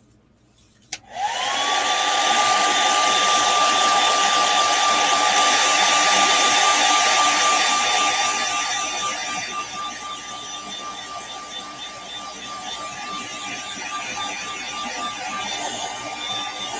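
Handheld hair dryer switched on with a click about a second in, its motor whine rising and settling at one steady pitch over a steady rush of air, drying freshly sprayed airbrush paint on a fishing lure. The sound eases off somewhat after about eight seconds.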